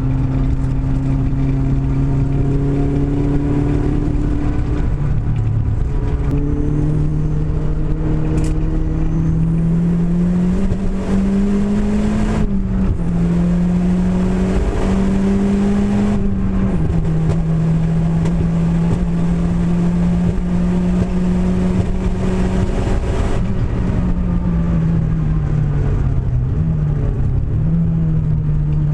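Renault Clio engine running, its pitch slowly climbing over the first dozen seconds, holding, then dropping near the end; the car has a misfire.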